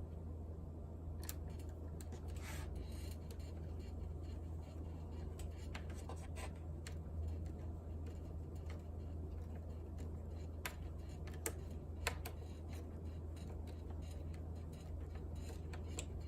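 Scattered small clicks and ticks of small screws and a screwdriver against a plastic laptop case as the screws are put back in, over a steady low hum.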